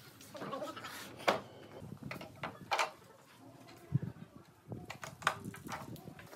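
Wooden pallets and boards being handled on a concrete floor: several sharp wooden clacks and a dull thump about four seconds in, as a pallet is set down on another and a loose board and clamps are laid on top.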